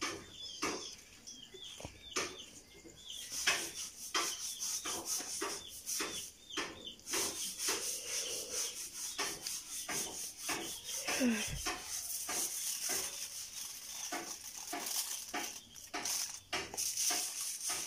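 Irregular scraping or rubbing strokes, several a second, over a steady high hiss.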